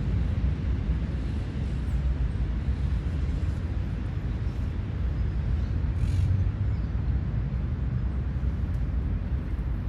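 Urban park ambience: a steady low rumble that does not let up, with a short high bird call about six seconds in.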